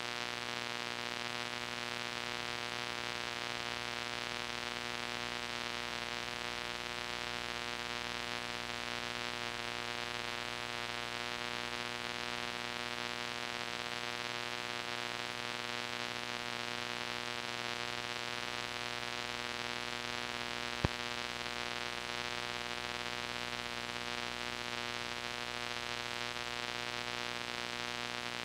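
Steady hiss and hum from an old VHS tape playing with no programme sound, with a single sharp click about three quarters of the way through.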